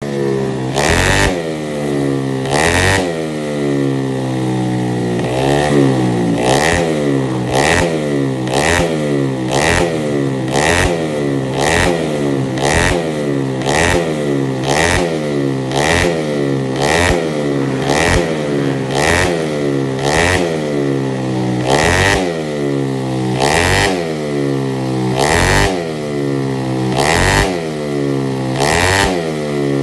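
Road-race motorcycle engine being warmed up with rapid throttle blips, about one a second, each rev sweeping up in pitch to a sharp crack at the top and dropping back.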